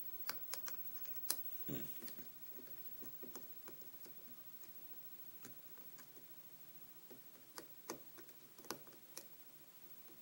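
Small, irregular metallic clicks and taps of a steep hook pick working the pin stack inside an American 1105 padlock, held under tension from a pry bar tensioner: pins being lifted and setting. A cluster of clicks comes in the first two seconds and another near the end.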